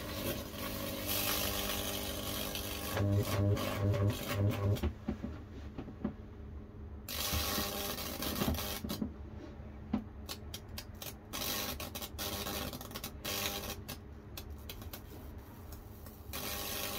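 High-voltage fractal (Lichtenberg) burning on a wet cedar board: the electrodes buzz and hiss as the current burns through the wood, with runs of sharp crackling snaps. The sound starts and stops several times.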